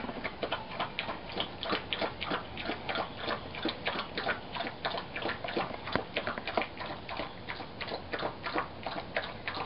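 A dog eating a wet mash of rehydrated dehydrated dog food from a bowl: a quick, irregular run of wet smacks and clicks from its mouth and tongue, about three a second.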